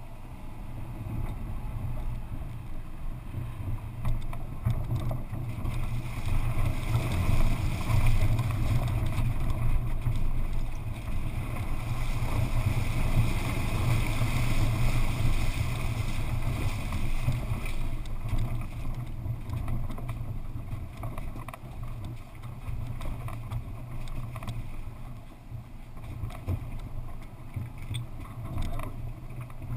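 Car driving off-road over rough stony ground, with a steady low rumble and small knocks from the bumpy track. In the middle, water hisses and splashes up around the wheels as it fords shallow water.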